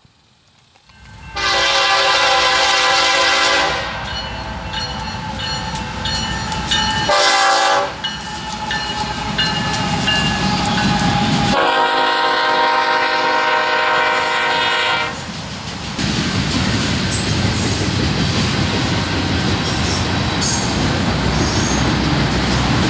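A BNSF freight locomotive sounds its horn in three blasts, long, short, long, as it approaches. The train then passes close by with a steady rumble and clatter of wheels on rail.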